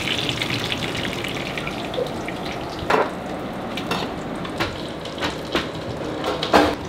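Food sizzling in a cast-iron skillet, a steady hiss that is strongest in the first second, with a few sharp clicks of metal tongs and pans.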